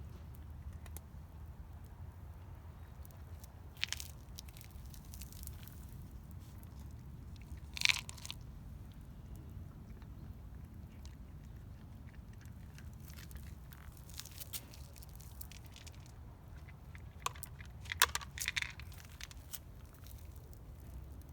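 A cat eating, with a few scattered crunching bites over a low steady rumble.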